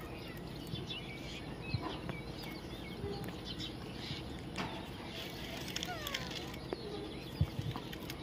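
Parrot chirping faintly, with scattered short squeaks and small rising and falling chirps over a steady low background noise.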